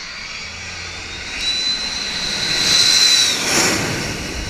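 Jet engines of a small twin-engine jet with rear-mounted engines on landing approach, passing low overhead. The rush of the engines swells, with a steady high whine that cuts off as the aircraft goes over about three and a half seconds in, then the rush eases off.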